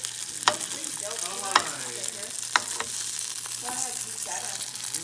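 Teal meat sizzling in a frying pan, a steady hiss, with three sharp clicks spread over the first half.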